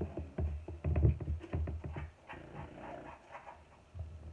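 Thumps and rustling of a phone's microphone being knocked and brushed by a sleeve close against it, loudest about a second in, with a few short pitched sounds in between.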